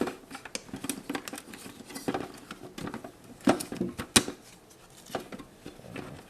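Plastic parts of a dehumidifier's water tank being handled as the splash guard is worked out and the stored accessories are taken out: irregular clicks, knocks and light rustling, with two sharp clicks about three and a half and four seconds in.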